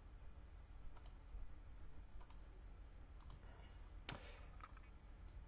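Several faint, scattered clicks of a computer mouse or similar device while a drawing is made on screen; the loudest comes about four seconds in.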